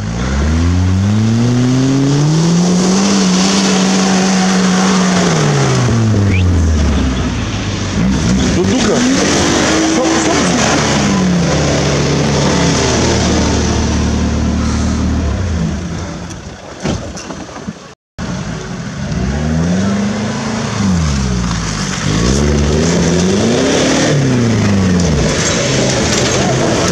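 4x4 SUV engine revving hard while climbing a steep slope: the pitch rises, holds and falls again several times. The sound drops out briefly about two-thirds of the way through, and the later rev swings come quicker, rising and falling in quick succession.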